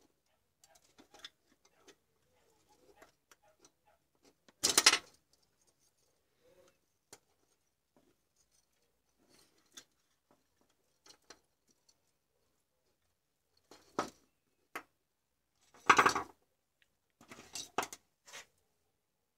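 Hand-handling noises of small electronic parts and wires: scattered light clicks and ticks, with two louder short rustling bursts about five seconds in and near sixteen seconds, and a run of clicks near the end.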